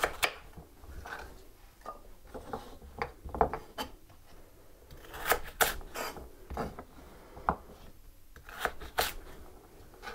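Kitchen knife cutting peeled carrots on a wooden cutting board: irregular chops and knocks of the blade through the carrot onto the board, a few louder ones around the middle and near the end, with some rubbing as the pieces are moved about.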